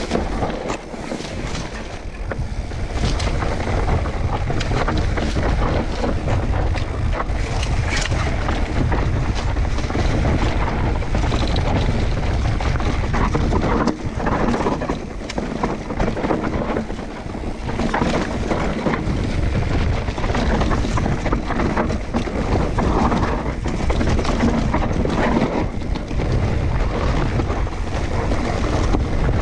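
Wind buffeting the microphone: a loud, irregular rush with a heavy low rumble and no steady engine tone.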